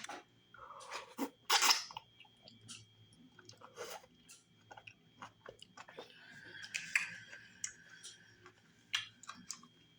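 A person chewing a mouthful of fufu with okra stew, tripe and cow skin, heard as many scattered short mouth clicks, with a louder burst about a second and a half in.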